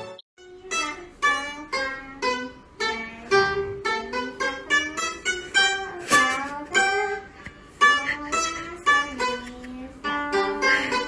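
A ruan, a round-bodied Chinese plucked lute, playing a melody of separate plucked notes, several a second, each fading after it is struck, with a few bent notes near the middle. The music starts a moment in.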